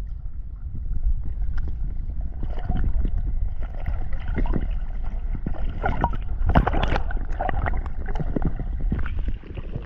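Water splashing and sloshing around the fish cage, with a steady low wind rumble on the microphone; the sharpest splashes come about six to seven seconds in.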